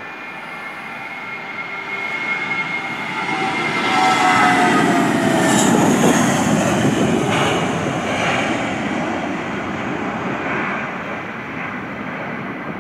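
Airbus A320-233's twin IAE V2500 turbofans at takeoff thrust as the airliner rolls past and lifts off. A whine falls in pitch as it passes, the rumble is loudest about four to seven seconds in, then it slowly fades as the jet climbs away.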